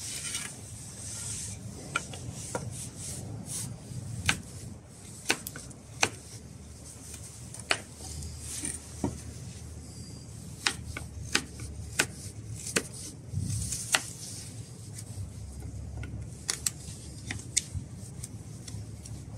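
Fixed-blade knife carving a notch into a wooden pole: scraping cutting strokes with frequent sharp, irregular clicks.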